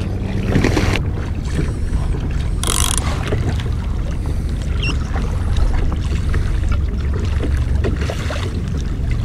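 Wind rumbling on the microphone over water lapping against a kayak hull on open ocean, with a brief hiss about three seconds in.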